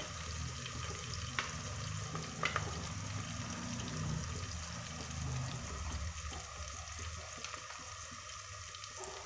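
Sliced shallots, green chillies and whole spices sizzling steadily in hot groundnut oil and ghee in a pressure cooker, the onions being sautéed until they soften and colour. Two faint ticks come about one and a half and two and a half seconds in.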